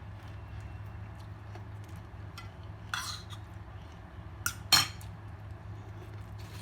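Plates and utensils clinking: a few sharp knocks, the loudest about two-thirds of the way through, over a steady low hum.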